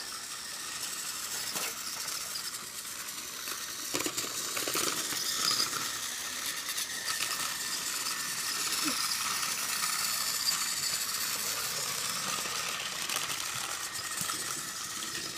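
Small toy pieces clicking and rattling now and then over a steady hiss.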